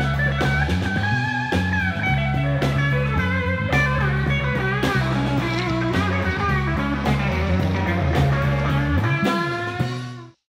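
Rock music with electric guitar, bass guitar and drums, fading and then stopping shortly before the end.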